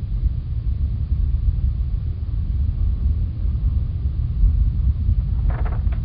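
Strong wind buffeting the microphone: a deep, gusting rumble that rises and falls in loudness, with a brief brighter rush of higher noise near the end.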